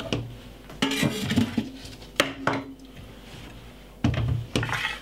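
Kitchenware being handled on a wooden chopping board: a few knocks and clinks as a kitchen knife is set down and a glass salad bowl is moved across the board.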